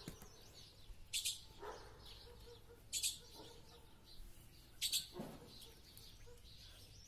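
A bird chirping: three short, high calls about two seconds apart over a faint background.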